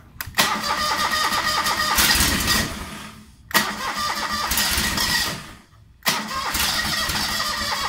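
Starter cranking the John Deere 425's Kawasaki V-twin engine in three attempts with short pauses between them, the engine not settling into a run. It is a cold start on a carburettor that needs adjusting, with a battery the owner calls toast.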